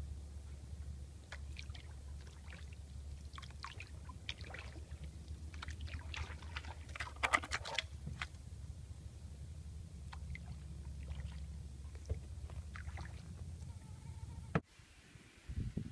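Canoe being paddled through still swamp water: short splashes, drips and trickles from the paddle strokes, the loudest about halfway through, over a steady low hum.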